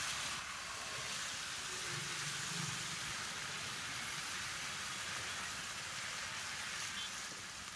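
Steady hiss of heavy rain and tyres on a flooded road, heard from a moving vehicle, with a faint low engine hum rising briefly about two seconds in.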